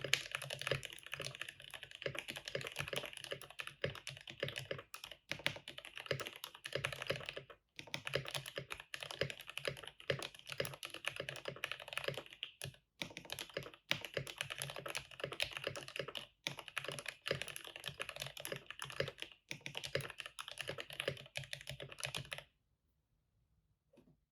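Steady fast typing on a custom 60% mechanical keyboard with a cardboard case, aluminium half-plate, Gateron Milky Yellow linear switches lubed with 205g0 and filmed, and PBT keycaps: a dense run of key clacks with a couple of brief pauses. The typing stops a couple of seconds before the end.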